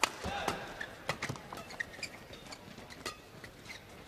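Badminton doubles rally: rackets striking the shuttlecock in sharp hits at irregular intervals, mixed with players' shoes squeaking and thudding on the court.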